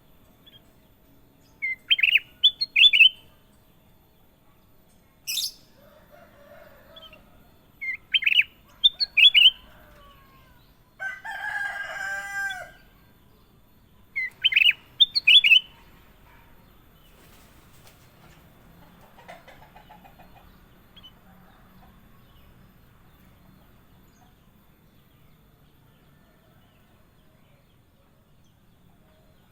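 Kutilang emas singing three bursts of short, quick, high whistled notes several seconds apart. About eleven seconds in, a longer, lower call of about a second and a half, like a rooster crowing, comes between the bursts.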